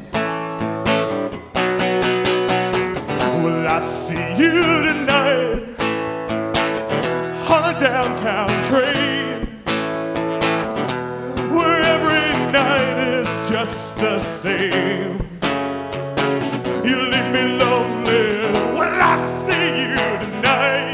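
Acoustic-electric guitar strummed in a steady rhythm, with a man singing over it in phrases of a few seconds each.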